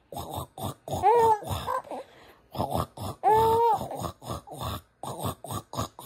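Five-month-old baby mouthing and sucking on its fist, making quick wet smacking sounds several times a second. Two short pitched squeals come through, about a second in and again around three seconds in.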